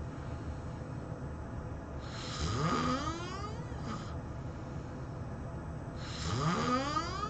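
A person snoring loudly. Two long snores come about four seconds apart, each rising in pitch. A short, softer sound follows the first, and the second snore starts near the end.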